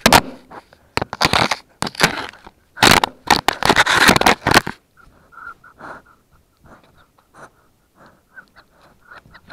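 Puppies mouthing and chewing an action camera right on its microphone: loud scraping and crunching against the camera body for the first four to five seconds, then quieter, rapid puppy panting close to the microphone.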